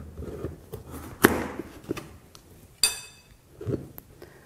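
Chef's knife cutting through a Hokkaido pumpkin and knocking on a cutting board: a few scattered knocks, the sharpest about a second in, and a brief ringing clink near the three-second mark.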